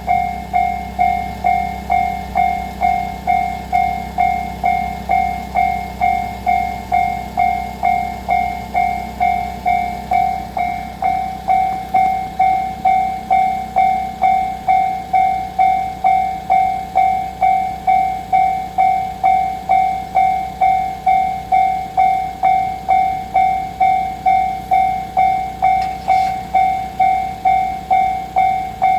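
Japanese railway level-crossing alarm ringing its steady 'kan-kan' tone, about three strokes every two seconds. Under it, the low rumble of a passing train fades out about ten seconds in.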